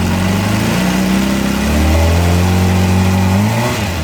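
Suzuki GSX-R motorcycle's inline-four engine idling, then revved up steadily over a couple of seconds and let fall back to idle near the end.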